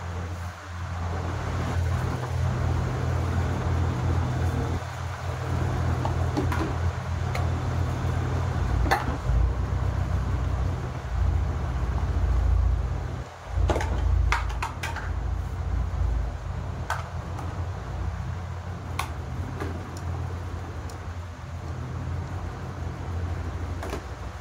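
A steady low rumbling hum, with a few sharp clicks and knocks from items being handled while cleaning: one about nine seconds in and a cluster around the middle.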